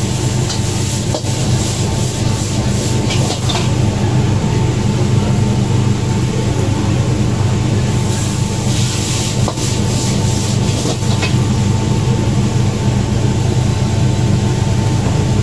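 Stir-frying in a wok over a gas wok burner: the burner's steady roar under a metal ladle scraping and clanking against the wok, with vermicelli and bean sprouts sizzling, louder about eight seconds in.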